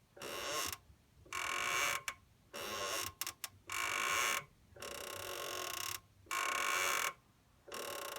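Kia Rio's clutch squeaking: a high, creaky squeak repeated about seven times, each squeak lasting under a second, with short pauses between.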